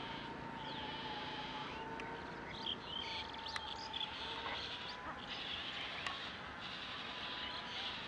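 Marsh ambience: a faint steady whine under scattered short high chirps from distant wildlife, with a few soft clicks.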